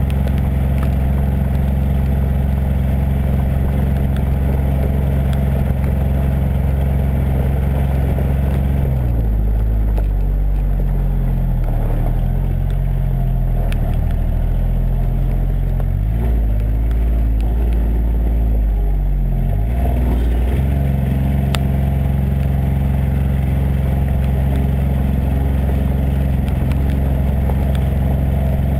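The three-cylinder diesel engine of a John Deere Gator 855D utility vehicle running under way. Its note is steady, then drops and wavers up and down from about nine seconds in, and settles back to the earlier steady pitch about twenty seconds in.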